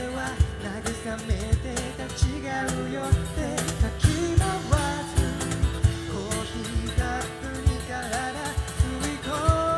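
Live pop song: two male vocalists singing into handheld microphones, backed by acoustic guitar and drums with a steady beat.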